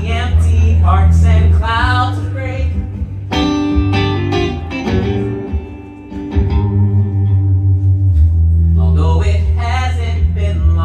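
Live band playing a soul song: a man singing over electric guitar and a steady bass line, the music easing off briefly about six seconds in before picking back up.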